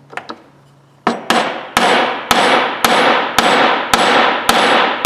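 Hammer tapping a punch against a pin in an old Snap-on F723A 3/8-inch ratchet, trying to drive it out. Starting about a second in, it makes sharp metallic strikes, about two a second, each ringing briefly. The pin doesn't want to come.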